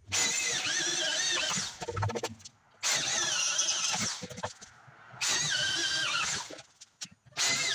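Corded electric drill boring holes through wooden wall studs: three runs of a high motor whine, each about a second and a half, whose pitch sags and wavers as the bit bites into the wood, with a fourth run starting near the end.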